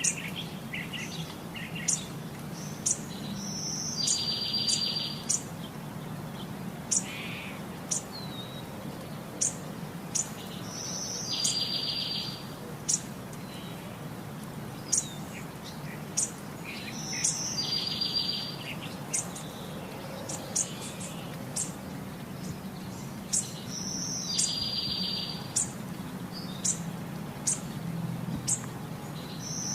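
Birds chirping, with many short high chirps and a buzzy trilled call that recurs every six or seven seconds, over a steady low hum.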